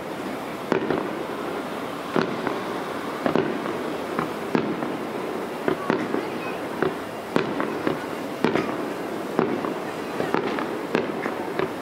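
Aerial firework shells bursting in a display, a dozen or so sharp bangs at uneven spacing, roughly one a second, over a steady background haze.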